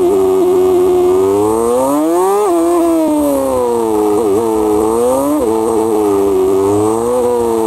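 Motorcycle engine running on a winding road, its pitch rising and falling with the throttle. The pitch drops sharply twice, about two and a half and five and a half seconds in.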